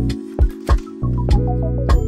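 Background music with a deep bass line and a steady beat of drum hits, about three a second, with a short falling run of melody notes a little after a second in.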